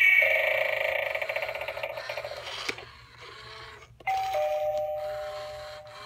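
Battery-powered Halloween eyeball doorbell's small speaker playing an electronic chime. A wavering tone fades out with a click, then about four seconds in a two-note ding-dong, high then lower, fades away.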